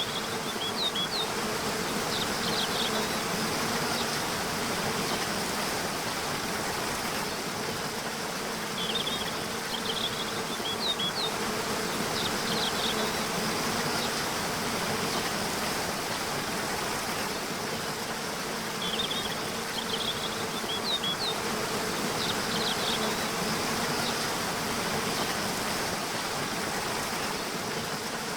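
Waterfall rushing steadily under a low, steady insect buzz, with short high bird chirps coming in small clusters about every ten seconds.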